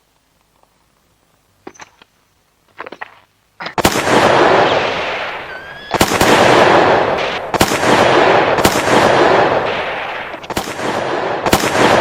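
A few faint clicks, then about six loud gunshots from about four seconds in, each followed by a long echoing tail: western-film revolver and rifle fire sound effects.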